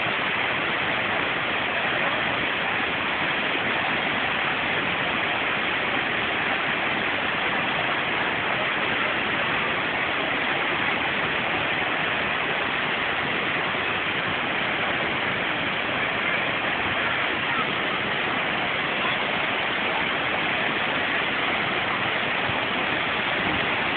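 Waterfall: falling water rushing steadily, with no change in level.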